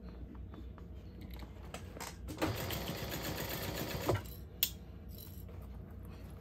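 Juki industrial sewing machine running in a short stitching burst of about a second and a half near the middle, sewing through a purse's layers, with scattered handling clicks around it and a sharp click just after it stops.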